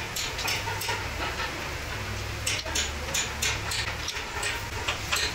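Short wooden clacks and taps, several a second and coming in clusters, as grooved wooden blocks are shifted and pushed together by hand on a concrete floor, over a steady low hum.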